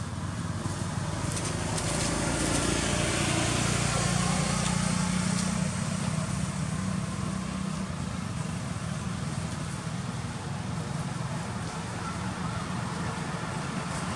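Low, steady rumble of a passing motor vehicle's engine, swelling a couple of seconds in and then slowly easing, over an outdoor background hiss.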